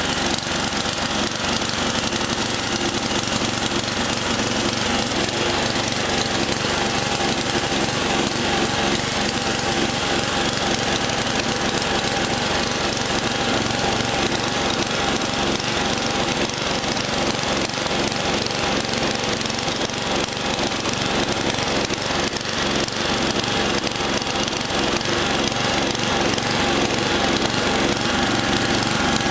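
Craftsman LT11/36 lawn tractor engine running steadily under way, heard from the driver's seat; the owner says the engine still needs a little tuning up.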